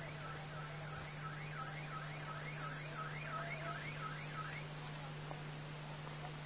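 Emergency-vehicle siren in a fast yelp, its pitch sweeping up and down about three times a second, cutting off about four and a half seconds in, over a steady low hum.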